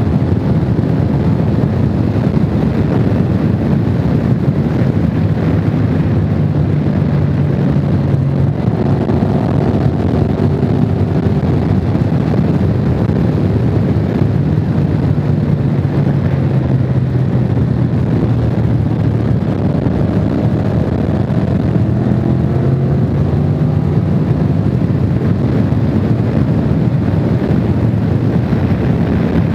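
Honda VFR750's V4 engine running at a steady cruise, its pitch drifting gently up and down, under heavy wind rush on the microphone.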